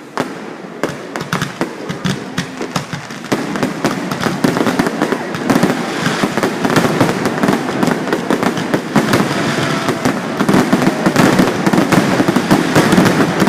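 Fireworks going off in rapid succession: many overlapping bangs and crackles. The barrage grows denser and louder about three seconds in.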